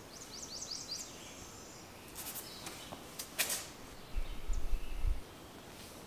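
A small bird gives a quick run of rising chirps at the start. Then come short rustles and rubbing as the rubber threshold strip is pressed down onto the concrete, and a low muffled rumble for about a second near the end.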